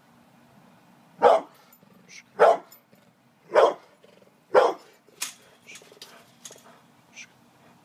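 Brindle pit bull barking at a gate: four loud, deep barks about a second apart, followed by several fainter, shorter sounds.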